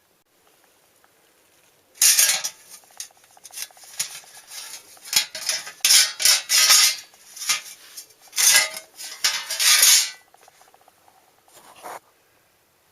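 Hard metal objects clattering and clinking together irregularly, starting about two seconds in and stopping about two seconds before the end, with one more short clink near the end.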